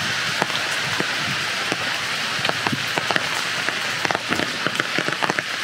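Steady rain falling: an even hiss with many separate drops ticking sharply on nearby surfaces.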